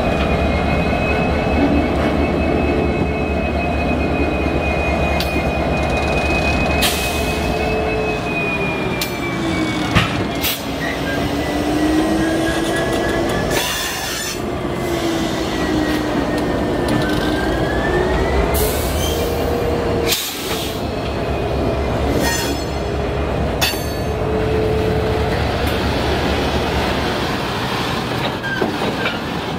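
EMD GP60 diesel locomotive running as it pulls a cut of boxcars past at low speed. Wheel flanges squeal in wavering tones that slide up and down, with scattered clicks and knocks from the wheels and cars.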